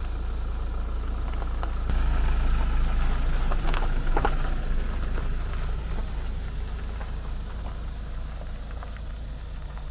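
Steady low vehicle rumble of a motor vehicle running, with a few light clicks about four seconds in.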